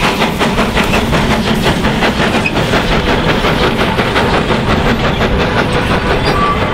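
Hunslet steam tank locomotive running along the line, with a quick regular beat of about five strokes a second that fades somewhat after the first couple of seconds.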